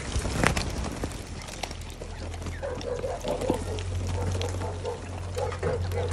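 A crowded flock of ring-necked pheasants moving over dry stony ground, with many small clicks and scuffs and a louder knock about half a second in. From about halfway there is a run of short soft repeated calls, over a low steady hum.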